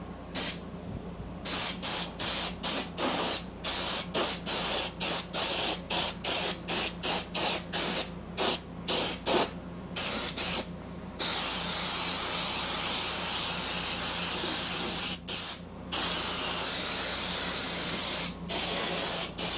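Compressed-air undercoating spray gun with a long wand spraying Fluid Film rust inhibitor: a hiss of air and mist in quick short blasts, about two a second, for the first half, then longer continuous sprays broken by two brief pauses.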